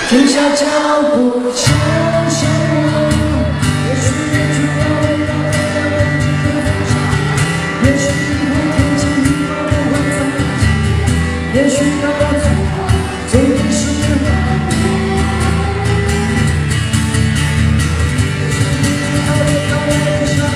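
Live acoustic pop performance: a male voice singing a melody over guitar and a steady beat, with a deep bass part coming in under it about two seconds in.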